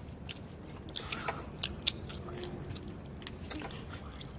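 Someone chewing and biting into sour candy: a string of short, sharp crunches and clicks at an uneven pace.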